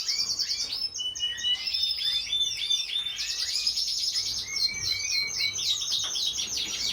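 North Dutch Frill canary singing a continuous song of fast trills and rolls, with a held whistled note about a second in and a rapid, dense trill from about three seconds in.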